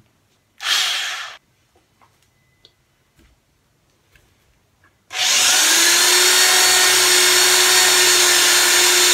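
Handheld corded electric drill with a quarter-inch bit boring a hole into a phone mount: a short blip of the motor about half a second in, a few faint knocks of handling, then the drill running steadily at constant speed from about five seconds in.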